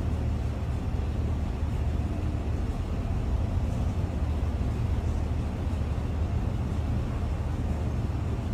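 Steady low rumble of kitchen equipment running, with a faint even hiss above it.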